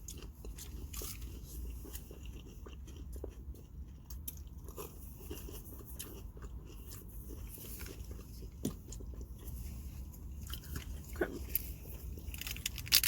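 Close-up eating: biting and chewing breaded, fried mozzarella sticks, with many small crunchy clicks over a low steady hum.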